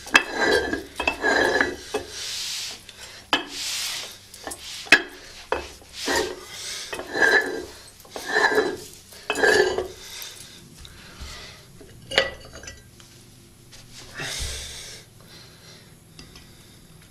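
Adjustable cast-iron kettlebell being twisted apart by hand: a series of short metal-on-metal scraping strokes about a second apart as the shell turns on its thread, then a few knocks and clinks of iron parts near the end as the weight discs are handled.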